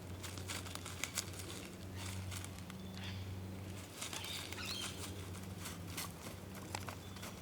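Faint steady low hum with scattered soft clicks and rustles.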